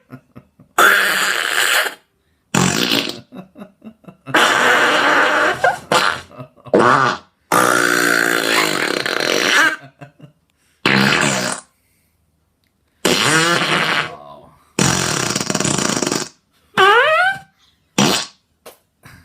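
An Amazon Echo smart speaker playing a string of fart-like noises instead of music: about ten blasts of varied length with short gaps between them, a few with a sliding pitch near the end.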